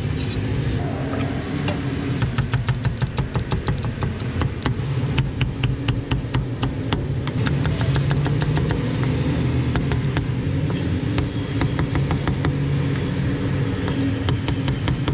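Cleaver chopping on a wooden chopping block through roast pork and braised offal, in runs of quick strokes several a second, over a steady low engine hum.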